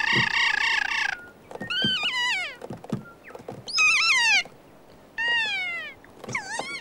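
Keas calling as they play together: about five shrill calls, the first long and warbling, the others short and sliding down in pitch.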